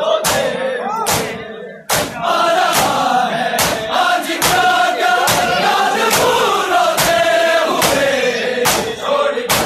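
A crowd of men chanting a mourning chant in unison over loud, evenly timed slaps a little faster than once a second: chest-beating (matam) by Muharram mourners.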